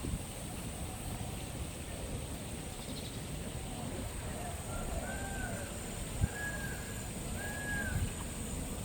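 A bird calling in an aviary: three short whistled notes, each rising then falling, in the second half, over a steady high-pitched hiss and low rumble.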